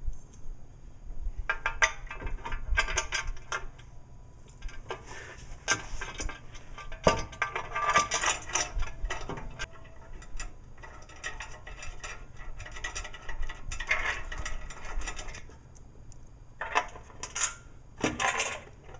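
Several bursts of rapid metallic clicking and clinking as bolts and steel bumper pieces are fitted to the bumper bracket by hand, with short quieter gaps between them.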